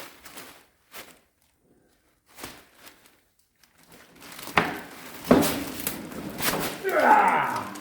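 A heavy cast-iron cabinet table saw being wrestled upright: a few faint clicks, then from about halfway several loud knocks and thumps with scraping and handling noise, and near the end a drawn-out sound falling in pitch.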